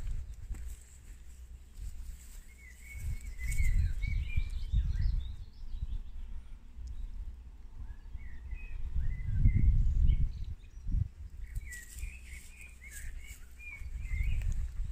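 Small birds singing, with short chirping phrases throughout. Gusts of low rumbling noise on the microphone come and go, loudest twice.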